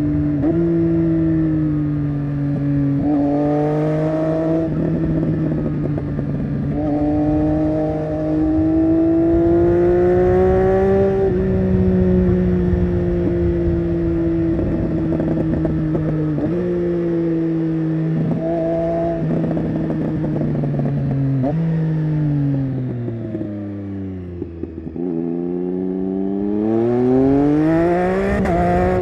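Triumph Street Triple 675 Rx's inline-three engine through an SC-Project Conic exhaust, pulling through the gears with several quick shifts. About three-quarters of the way through the revs fall away on a long deceleration with some exhaust crackle on the overrun. Near the end the revs climb steeply as it accelerates hard again.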